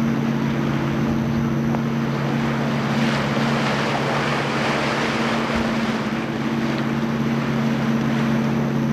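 Boat engine running steadily with a constant hum, and a rushing hiss that swells about three seconds in and fades again a few seconds later.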